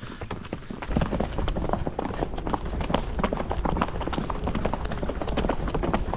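Horse's hooves beating fast and irregularly on a dirt trail at a quick gait, with a low rumble of wind buffeting the microphone from about a second in.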